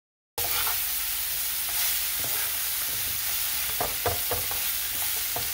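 Salt and pepper shrimp sizzling with a steady hiss in a nonstick frying pan while a spoon stirs them. The spoon clicks and scrapes against the pan a few times about four seconds in and again near the end. The sizzle starts suddenly a moment in.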